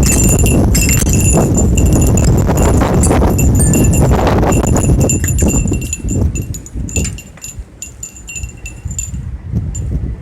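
Thunder rumbling loudly, then dying away about six seconds in. A high metallic ringing recurs throughout, in short notes at the same pitches.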